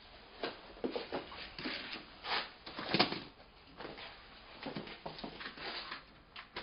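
Irregular short knocks and clatter, like objects being handled, loudest about three seconds in.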